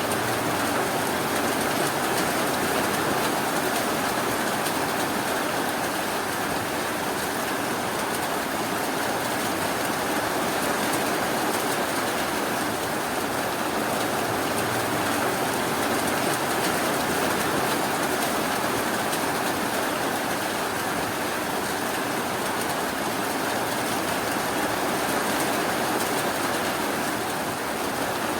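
Steady rainfall, an even hiss that keeps on without breaks or thunder.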